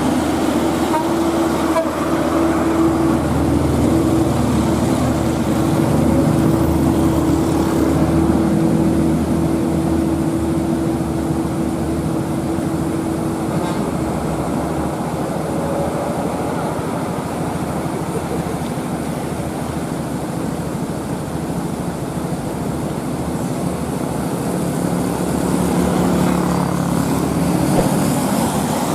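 Truck and traffic engines running on a steep uphill road. A steady horn-like drone holds through about the first half, then fades.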